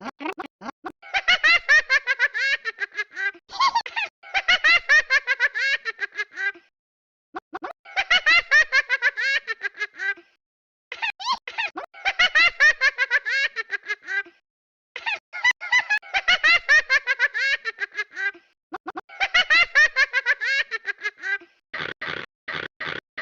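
High-pitched laughter, a fast 'ha-ha-ha' in six bursts of two to three seconds each, with short pauses between them.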